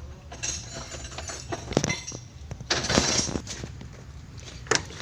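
Metal tools and parts clinking and knocking as they are handled during excavator gearbox work: a few separate sharp knocks, with a short rattle of metal about three seconds in, over a low steady hum.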